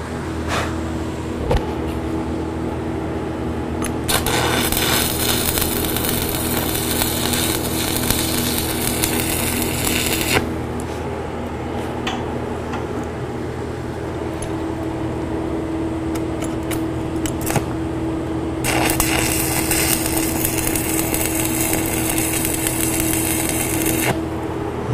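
Stick (shielded metal arc) welding with 3/32" 7018 rod, the arc crackling and hissing in two runs of about six and five seconds as the steel door members are tacked together. A steady low hum runs underneath.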